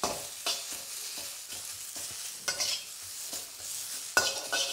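Vegetables sizzling in a very hot wok while a metal wok spatula scrapes and tosses them. Several scraping strokes stand out above the steady sizzle.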